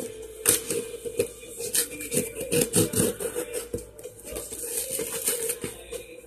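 Knife slitting packing tape on a cardboard box, then the tape being lifted and peeled off the cardboard: an irregular run of scrapes, crackles and taps.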